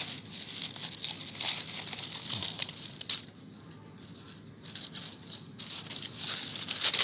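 Dry fallen leaves crackling and rustling as a hand pushes through them close to the microphone. The crackling stops for about a second and a half a little after three seconds in, then starts again and grows near the end.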